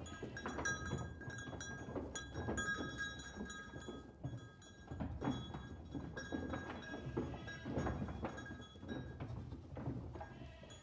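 Light background music of short plucked notes, with intermittent knocking and tapping beneath it.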